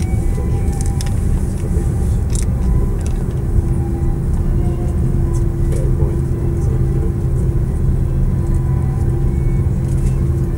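Cabin noise of an Airbus A340-300 taxiing, heard from a seat over the wing: its four CFM56 engines running at low taxi power as a steady low rumble with a steady hum above it, and a few faint ticks.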